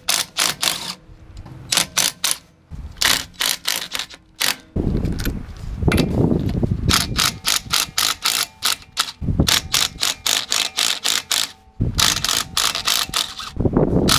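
Cordless electric impact driver with an impact socket adapter, hammering on a car's wheel lug nuts to loosen them. It runs in several bursts of rapid clattering impacts, with short pauses between them.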